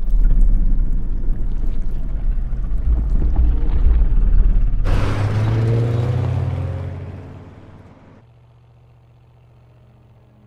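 Deep, loud film sound-effect rumble. About five seconds in, a rushing swell with a rising tone starts suddenly, then fades out by about eight seconds, leaving faint low music.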